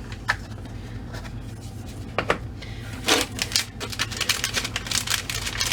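Small accessory packaging handled and opened by hand: a few scattered clicks, then from about three seconds in a fast run of crinkling and clicking.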